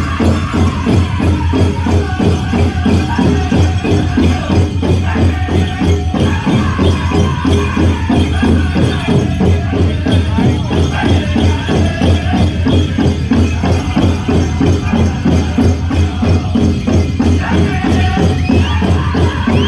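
Powwow drum group singing a men's chicken dance song over a fast, steady beat on the big drum, with the bells on the dancers' regalia jingling.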